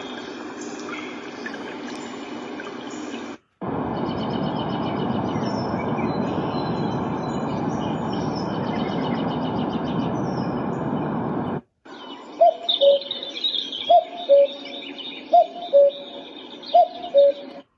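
White noise machine playing its recorded nature sounds through its small speaker, switching tracks with a brief silent break twice. First a water-like rushing, then a louder steady rushing noise with high chirps, then a bird's repeated two-note cooing call, about four times.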